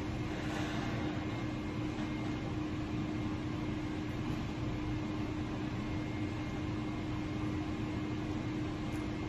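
Steady mechanical room hum with one constant low tone, unchanging throughout.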